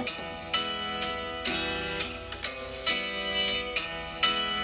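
A beat playing back: a looped plucked-guitar melody with sharp percussive hits at irregular intervals.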